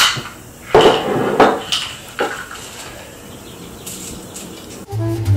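Small wooden magic trick box being handled: several sharp wooden clacks and knocks in the first two seconds or so, then quieter handling. Music with a beat starts near the end.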